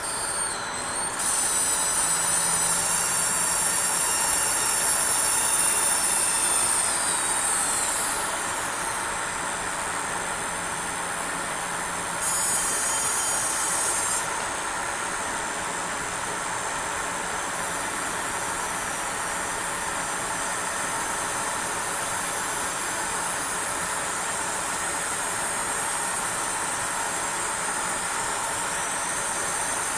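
Graphics card coil whine: a high-pitched electrical whine made of several tones that shift in pitch, sliding down about eight seconds in. A brief louder, buzzier stretch comes about twelve seconds in, over a steady hiss.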